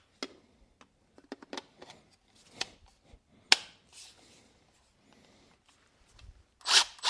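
Scattered clicks, knocks and rustles of a tool kit and its packaging being handled, with one sharp click about halfway through and a short rustle near the end.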